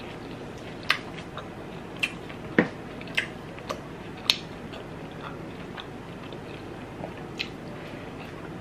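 Close-mic eating sounds of pork belly adobo: a string of sharp clicks and smacks from biting and chewing, thick in the first half, then sparse and fainter.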